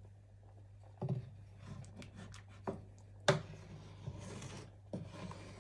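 Wooden spoon stirring a pot of fish soup, knocking against the metal pot a few times, with the sharpest knock about three seconds in, over a steady low hum.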